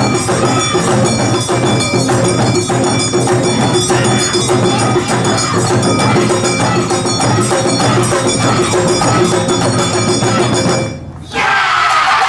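Awa odori festival music with drums, bells and wooden clappers playing a steady driving beat, stopping abruptly about eleven seconds in. Loud shouts and cheers from the dancers and crowd follow at the very end.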